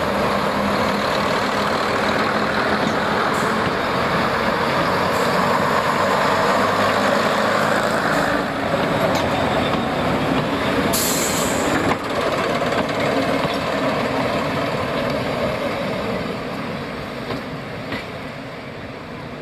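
Diesel multiple unit passing close by, its underfloor diesel engines running and wheels on the rails in a loud, steady noise that fades over the last few seconds as it draws away. A short hiss of air about eleven seconds in.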